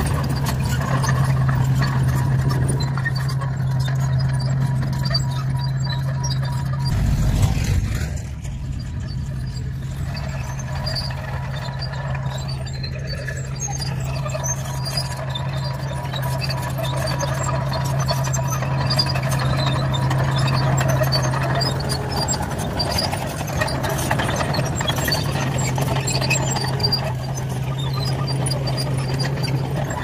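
Crawler bulldozer's diesel engine running with a steady low drone while its steel tracks crush broken-up chip-seal asphalt, with scattered sharp clicks and crunches. The sound breaks off briefly about seven seconds in.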